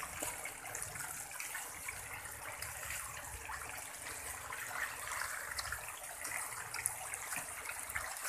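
Water splashing and churning as a densely stocked pond of catfish thrash at the surface for thrown feed pellets, over the steady splash of water pouring in from an inlet pipe.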